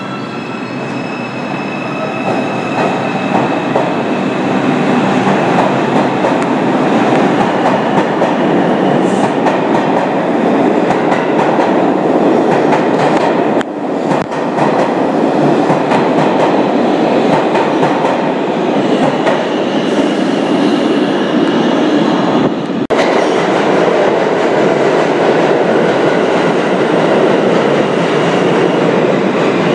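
New York City subway trains running through an underground station: an R142 train pulls out with a steady, loud rumble of steel wheels on rail and a high electric motor whine early on. About 23 seconds in the sound cuts to an R160 train running along the platform, with its own high whine over the wheel noise.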